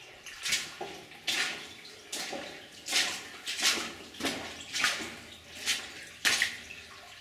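Boots splashing through shallow water at a steady walking pace, a step about every 0.7 seconds.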